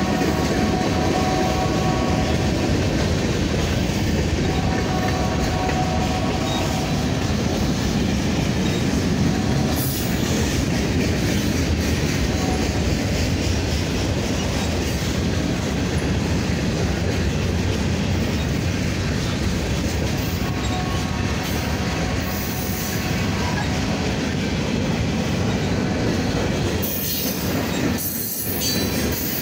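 Slow-moving freight train cars rolling past with a steady rumble of steel wheels on rail. High-pitched wheel squeal sounds twice in the first several seconds.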